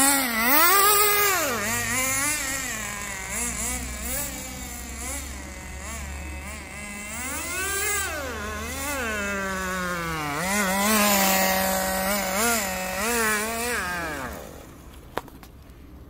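A radio-controlled Subaru Impreza rally car's small nitro engine revving up and down as it is driven, its pitch rising and falling over and over. The engine note drops away about fourteen and a half seconds in.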